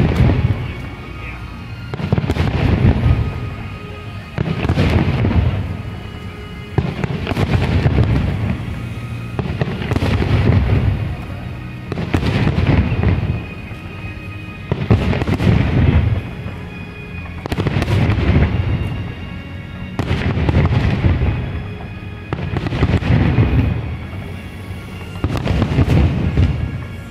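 Fireworks display: a loud aerial shell bursts about every two and a half seconds, each boom trailing off in crackle and echo.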